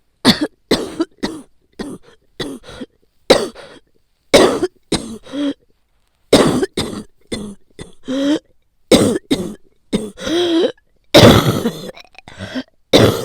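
A woman's violent, repeated coughing in quick bouts of short, harsh coughs, some of them with a strained, voiced edge. It is the cough of a heavy cold with inflamed bronchial tubes, painful even to breathe through.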